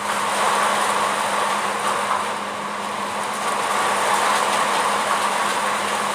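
Steady drone of running machinery in a ship's engine room: a constant low hum under a broad hiss.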